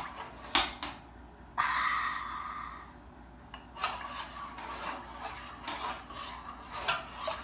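Kitchen handling sounds: a utensil scraping, rubbing and clinking against a pot or dish, with a sudden hiss about a second and a half in that fades away.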